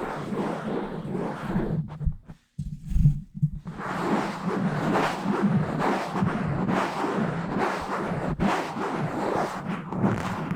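Fast, rough scratching and rubbing directly on a microphone. It drops out briefly about two seconds in and is followed by a few low thumps, then goes on as dense, continuous scratching.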